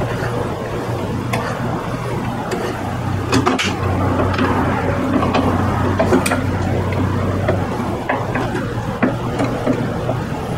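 A steel G-clamp's threaded screw being turned by hand to back it off a scooter tire's sidewall, with scattered metallic clicks and scrapes, releasing the clamp used to break the tire bead. A steady low hum runs underneath and fades out about three-quarters of the way through.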